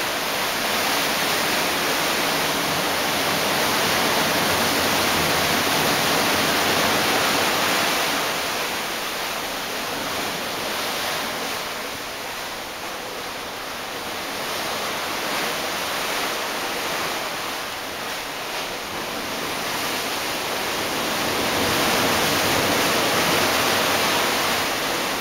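Steady rushing noise of wind and sea on the open deck of a ship under way, swelling and easing slowly.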